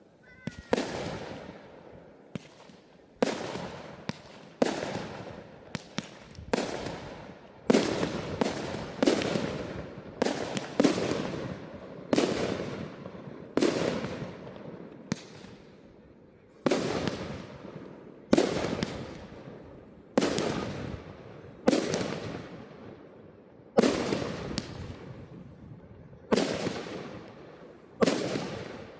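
Fireworks display: a steady run of sharp bangs from bursting fireworks, roughly one a second and sometimes two close together, each trailing off over about a second.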